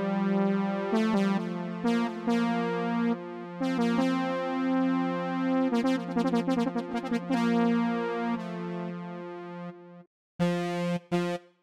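Arturia Analog Lab V's 'Brass Gentle' synth-brass preset played on a keyboard: soft held brass chords moving from one to the next, with a quick run of notes about six seconds in. The sound stops briefly about ten seconds in, then short, detached brass notes follow near the end.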